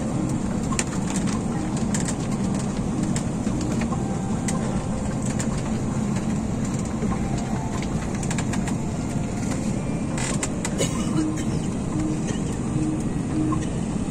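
Steady rush of an airliner cabin's air-conditioning on the ground, with passengers talking indistinctly. A few short clicks and knocks, a cluster of them about ten seconds in.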